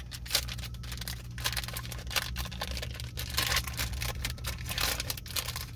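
Plastic snack-bar wrapper crinkling as it is handled and opened, a run of crackles and rustles with a few louder bursts.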